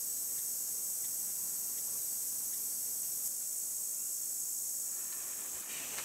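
Steady, high-pitched insect chorus droning without a break.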